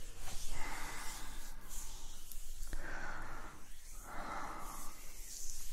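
Soft, breathy exhales close to a microphone: three hissy breaths of about a second each, with short gaps between them.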